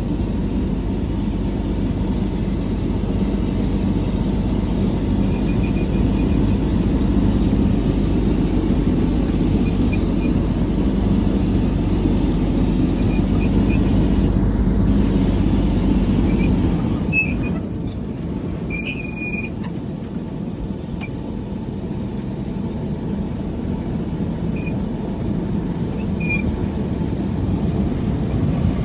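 Tour boat's engine running steadily with a low rumble. About two-thirds of the way through, the deepest part of the rumble drops away and the engine runs lighter.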